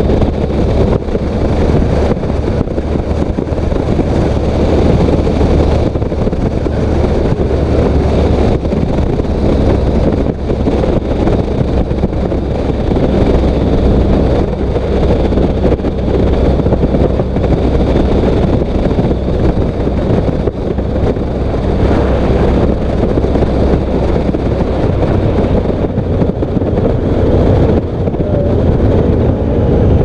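Loud, steady wind rumble on an exposed helmet-mounted microphone on a Honda CTX1300 motorcycle riding at speed, with a low steady hum beneath. The modular helmet's chin bar is raised, which the rider takes to be the cause of the wind noise.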